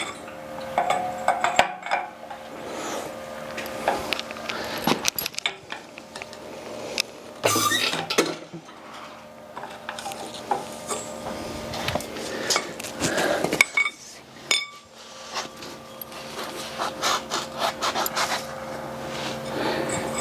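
Irregular clanks, knocks and scraping of heavy metal being shifted by hand with a workshop crane and trolley, over a steady faint hum.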